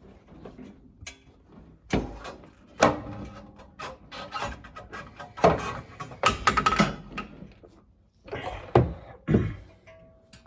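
Irregular metal knocks and clanks from the car's rear suspension as the differential is pressed down to free the rear coil spring, with a few sharp strikes that ring briefly.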